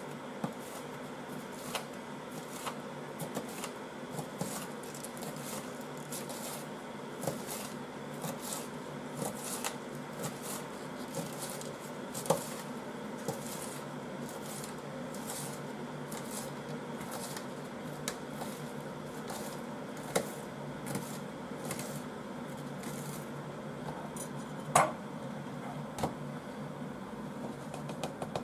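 Kitchen knife shredding cabbage on a thin plastic cutting sheet: an irregular run of short chopping taps over a steady low hum, with one louder knock about 25 seconds in.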